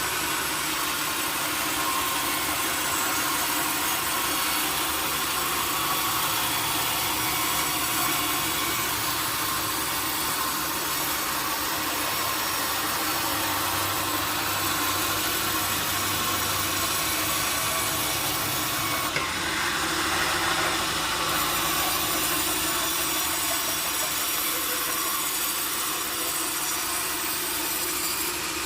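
Sawmill saw running and cutting through teak wood, a steady machine noise with the hiss of the cut. About twenty seconds in, the sound of the cut changes for a couple of seconds.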